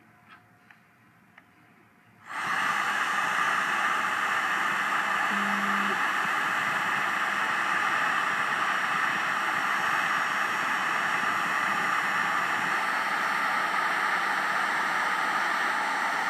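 A few faint clicks, then about two seconds in a handheld heat gun switches on and blows steadily: a loud, even rush of air from its fan.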